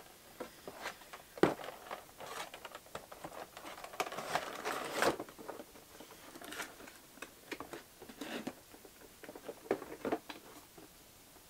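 Clear plastic packaging of small figures crinkling and rustling as it is handled and packed back into its box, with scattered taps and a sharp click about a second and a half in.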